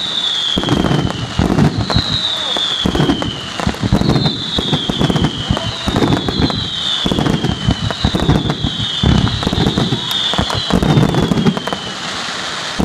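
Fireworks going off in quick succession: a run of whistles, each falling in pitch over about a second, one after another, over continuous bangs and crackling.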